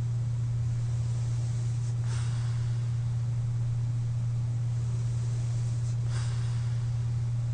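Sleeper breathing while wearing a CPAP mask: two short airy breath sounds about four seconds apart, one about two seconds in and one near the end. Underneath runs a steady low hum.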